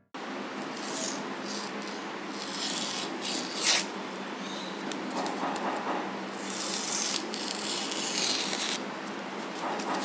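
Rubbing and scraping handling noises in irregular bursts over a steady hiss, with a longer scratchy stretch about two-thirds of the way through.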